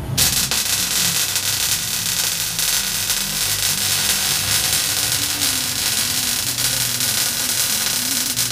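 Electric arc welding on a steel box-section frame: a steady, loud crackling hiss of the arc that strikes right at the start and holds without a break.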